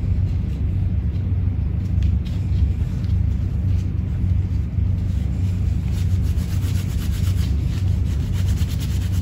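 Gloved hands wrapping and rubbing fiberglass casting tape over an arm cast: a soft scratchy rubbing that becomes busier about six seconds in, over a steady low rumble.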